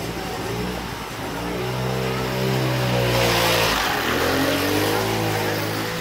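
A motorbike engine passing close by in a narrow lane, its note rising as it approaches and dropping as it goes past, loudest a little past halfway.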